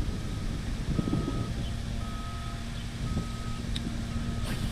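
A vehicle's reversing alarm beeping evenly, about once a second, over a steady low engine hum and a constant low rumble of wind on the microphone.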